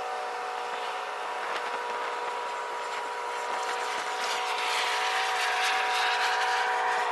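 Large container ship's engines running as it passes close by: a steady drone with a few held tones, joined by a rising hiss about halfway through that makes it louder.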